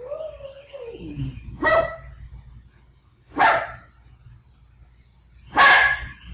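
A lone dog howling, one long call rising and then falling in pitch that ends about a second in, followed by three loud barks about two seconds apart, the last the loudest. It is distress howling at being parted from its companion dog.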